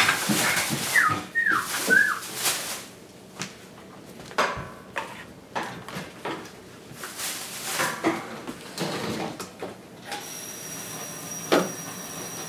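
Kitchen clatter: scattered knocks of dishes and utensils, with a few short squeaky glides about a second in. From about ten seconds in a steady hiss with a thin high whine sets in, and a single sharp knock follows shortly after.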